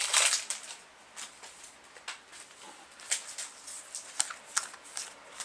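Magic: The Gathering cards from a freshly opened booster pack being handled and flipped through by hand: soft, irregular card clicks and snaps, about one or two a second.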